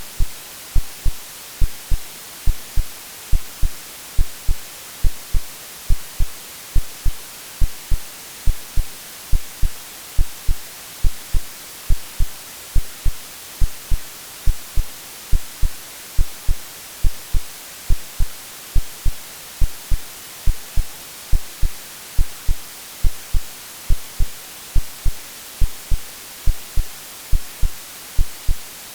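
Steady white noise hiss with a synthetic heartbeat laid over it: short, low lub-dub thumps repeating in an even rhythm, mimicking the womb sound a baby hears.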